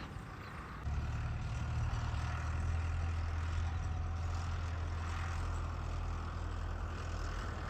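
A vehicle engine running steadily: a low, even hum that comes up about a second in and holds.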